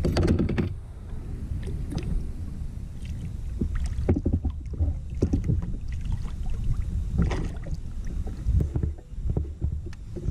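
Scattered knocks, rattles and small water splashes on a fishing kayak as a largemouth bass is handled and slipped back over the side, over a low steady rumble.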